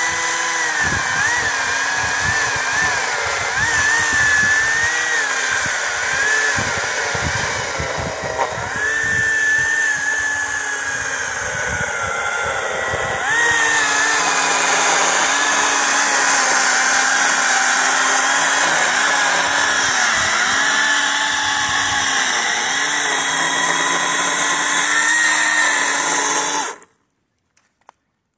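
Kobalt 40V brushless cordless electric chainsaw cutting into a downed oak log, its motor whine dipping in pitch now and then as the chain loads up in the wood. It stops suddenly near the end.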